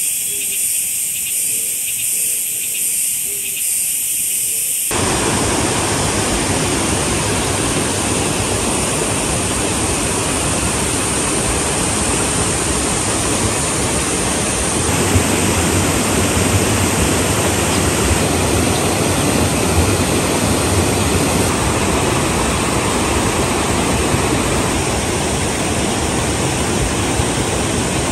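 Insects chirring in a high, pulsing drone for the first five seconds, then a sudden change to a steady, loud rush of flowing water.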